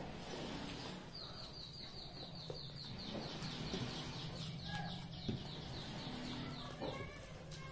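A bird's rapid high trill in the background, about eight short falling notes a second for some six seconds, over a steady low hum.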